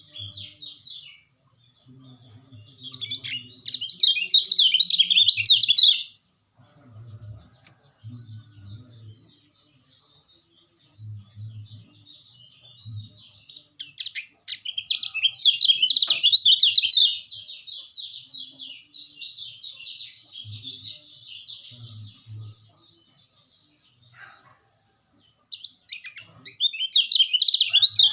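Song of the kecial kuning (yellow-bellied prinia): bursts of rapid, high chattering chirps, about three seconds in, in a long run from about 14 to 22 seconds, and again near the end. A thin steady high tone runs underneath.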